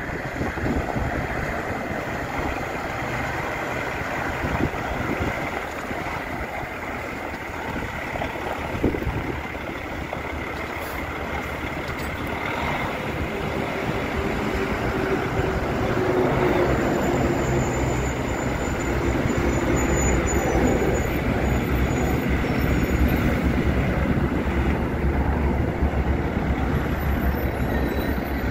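Kenworth T800 semi tractor's diesel engine running as the truck drives slowly past, louder in the second half.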